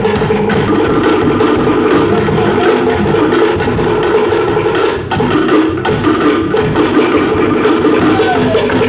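Cook Islands drum ensemble playing for a dance: wooden slit drums (pate) beaten with sticks in a rapid, driving rhythm, sustained throughout.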